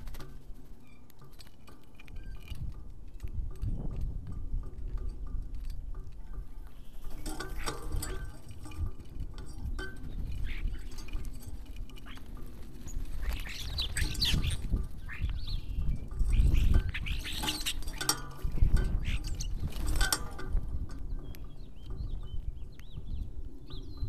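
Backyard birds calling in short chirps and squeaks, loudest in two clusters past the middle, with scattered light clicks and pattering over a low rumble.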